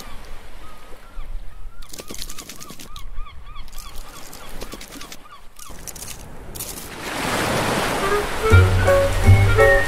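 Cartoon sound effects from an animated intro: a quick run of short squeaky chirps, several a second, with light clicks. A surf-like rush swells up about seven seconds in, and cheerful music with a bass line and melody starts near the end.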